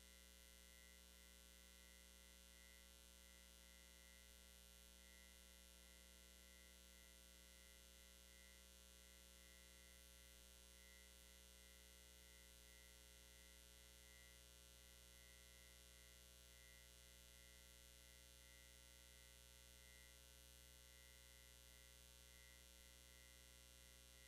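Near silence: a faint, steady electrical hum on the audio feed, with a thin high tone that flickers.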